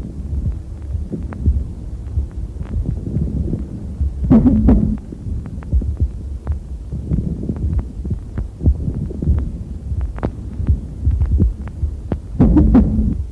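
Stethoscope recording of a pleural friction rub over the chest: a steady low rumble with many scattered creaking clicks and two louder grating creaks, about four and twelve seconds in. It is the sign of the inflamed pleural layers rubbing together, a rub that is heard on both breathing in and breathing out and does not change with coughing.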